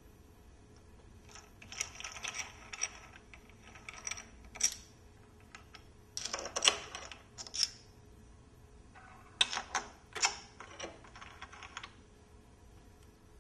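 Light metal clicking and clinking from hands handling tools and parts on an automated assembly machine's metal fixture, in four short bursts of rapid clicks.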